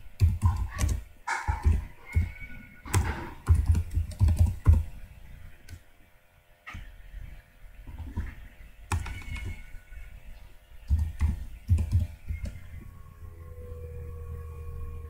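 Typing on a computer keyboard: quick runs of key clicks, then a short pause about six seconds in, followed by scattered single keystrokes.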